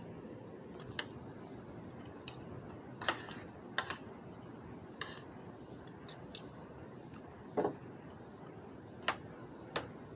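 Metal fork and spoon clicking and scraping against a plate while eating: about ten sharp, irregular clicks over a steady background hiss.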